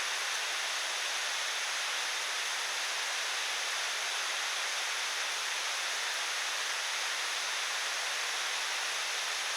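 Steady, even rushing hiss of outdoor ambience with no separate events, of the kind made by running water or falling rain.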